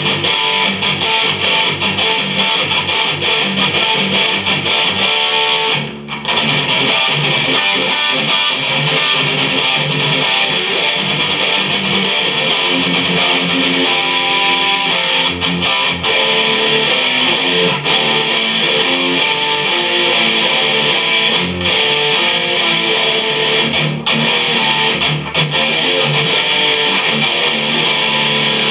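Photogenic Les Paul-style bolt-on-neck electric guitar played with a pick, a continuous run of picked notes and chords with a brief break about six seconds in.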